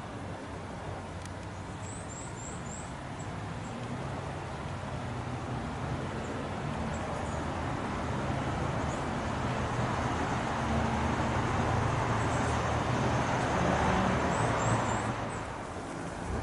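Vehicle engine rumble with road noise, swelling to its loudest near the end and then easing off, with a few faint high chirps twice.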